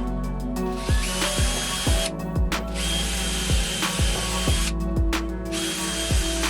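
Small power-tool motor running in three bursts of about two seconds each, the first spinning up with a rising whine. Background music with a steady beat plays underneath.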